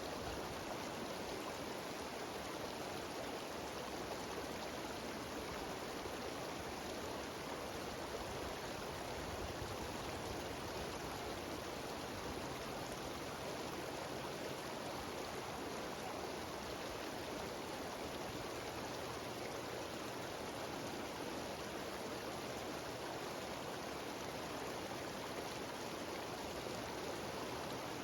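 Mountain stream and waterfall cascading: a steady, even rush of water that does not change.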